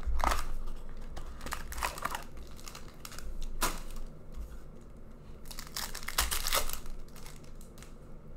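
Plastic and foil wrapping of hockey card packs being torn open and crinkled by hand, in several separate bursts.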